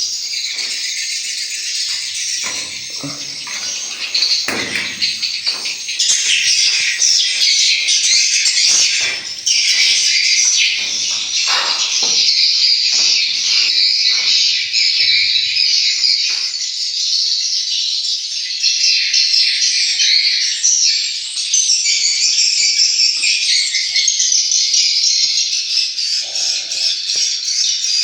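Dense, continuous high-pitched chirping and twittering of swiftlet calls, the lure sound that a swiftlet house's tweeter speakers play to draw birds in to nest.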